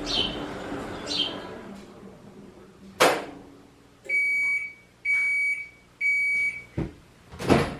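An electronic appliance beeper sounds three times, one steady beep each second. A sharp click comes before the beeps and a knock near the end. Bird chirps fade out in the first second or two.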